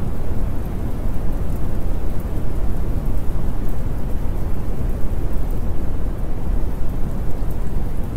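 Steady rain-and-thunder ambience: even, continuous rainfall with a deep rumble underneath and no breaks.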